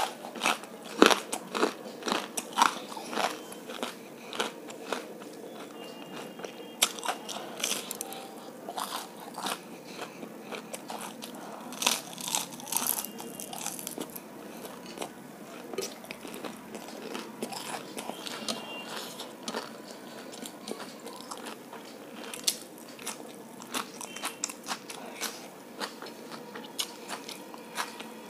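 Close-up chewing and crunching of fried, battered pakoda, with many irregular crisp crackles and snaps. The loudest crunches come near the start and about twelve seconds in.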